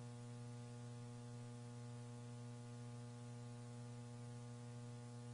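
Steady electrical mains hum with a stack of even overtones and faint hiss on the launch commentary audio line; no rocket sound is heard.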